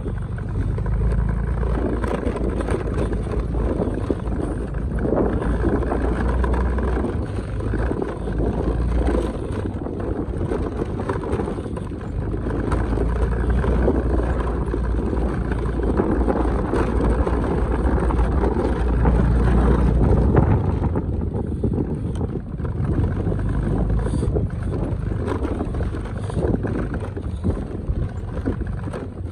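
Motorcycle engine running steadily as it rides over a rough, stony dirt track, with a heavy low rumble.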